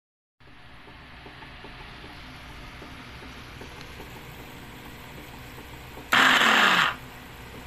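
Electric capsule-cutter mini food chopper motor running in one short burst of under a second, about six seconds in, then winding down with a falling whine as it stops.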